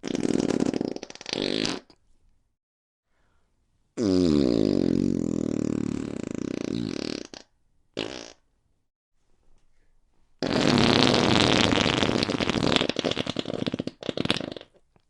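Fart sound effects played one after another. First comes a short fart in two puffs, then a long drawn-out one with wavering pitch, then a brief blip. Last is a long sputtering one lasting about four seconds.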